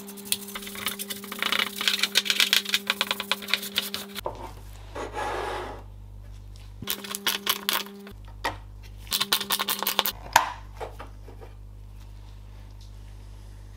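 A bristle paintbrush scrubbing the bare sheet-metal casing of a Corsair VS550 power supply in rapid strokes for about four seconds. Then come a few short spells of scratching and rubbing as a dusty plastic case fan is handled, with a sharp click about ten seconds in.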